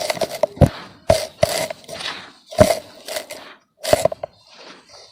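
Lumps of red dirt being crushed and crumbled, a series of irregular sharp crunches and crackles that thin out near the end.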